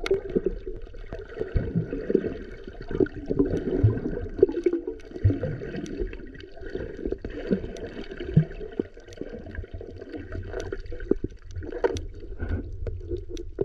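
Muffled underwater sound picked up by a GoPro in its waterproof housing: water churning and gurgling, with many scattered sharp clicks.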